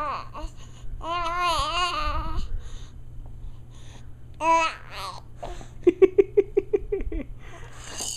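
Baby babbling and squealing: a long warbling squeal about a second in, a short high squeak around four and a half seconds, then a quick run of short repeated vocal sounds about six seconds in.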